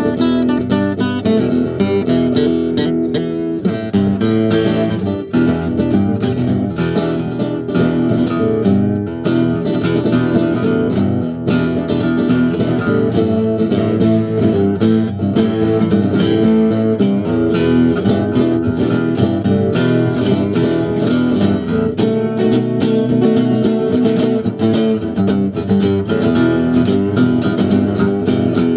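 Acoustic guitar played continuously, strummed chords and picked notes at a steady level.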